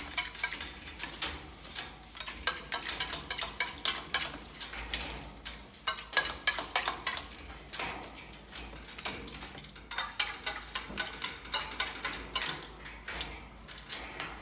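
Cockatoo bathing in its stainless steel water cup. It makes a rapid, irregular run of splashes and clatters as it dips and flaps, knocking the metal bowl.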